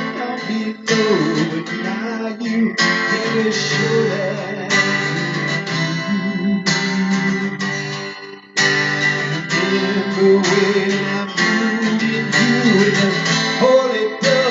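Guitar strummed with a voice singing along.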